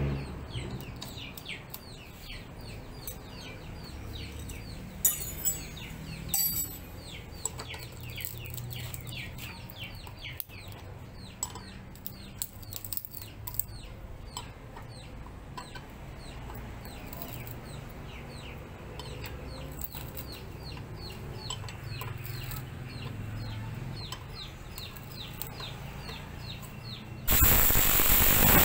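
Small birds chirping steadily in the background, short falling chirps several a second, with a few sharp clinks about five to seven seconds in. Near the end the homemade disc sander is switched on and runs with a loud, steady noise.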